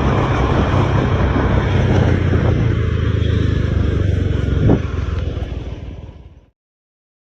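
Heavy truck engine running with road noise, a steady low rumble that fades out over the last couple of seconds into silence.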